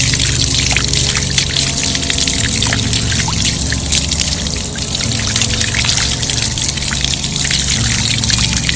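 Spring water running and splashing in a steady trickle, layered over steady low drone tones.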